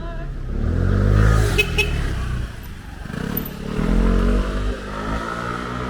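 Motor vehicles driving past close by, their engine noise swelling twice: about a second in and again around four seconds in.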